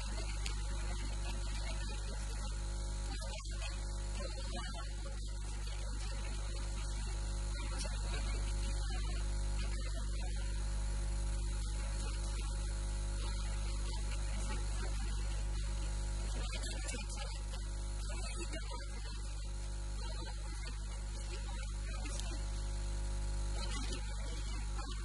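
Steady electrical mains hum and buzz, unchanging throughout.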